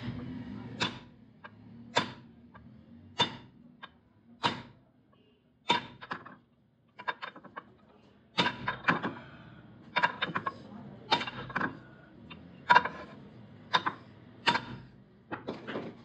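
Hammer striking a steel drift held on a motorcycle crankshaft's flywheel half, driving the crank together during a rebuild. Sharp metallic blows with a short ring, roughly one a second and some in quick pairs.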